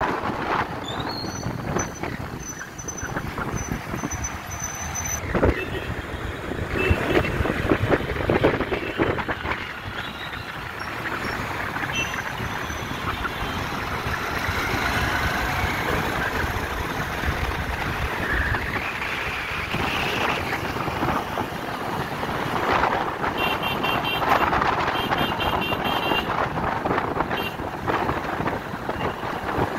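City road traffic heard from a moving motorbike: a continuous rush of engine and road noise with vehicles passing, and a run of short high beeps about three-quarters of the way through.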